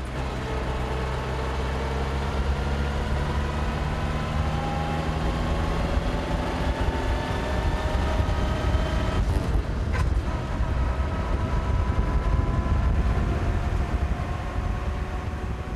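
Vintage car's engine heard from on board while driving, its note climbing steadily as it pulls along the road, over a heavy low rumble. About nine seconds in the note breaks off briefly with a click, as at a gear change, then climbs again.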